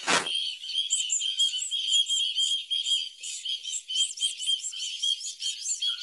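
A group of ducklings peeping: many short, high peeps overlapping in quick succession. A brief thump is heard right at the start.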